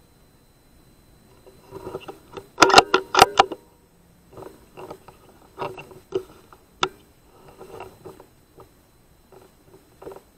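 Irregular clicks, taps and rustling, loudest in a quick cluster of sharp clicks between about two and three and a half seconds in, then sparser softer taps, with one sharp click just before seven seconds.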